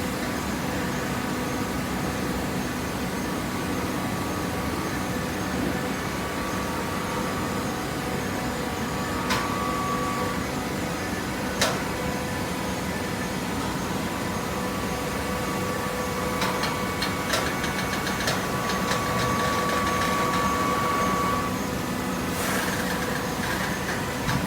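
Hydraulic vertical paper baler running: a steady hum of motor and hydraulic pump, with a higher whine from about fourteen seconds in until about twenty-one seconds, and a few sharp clicks, the loudest near the middle.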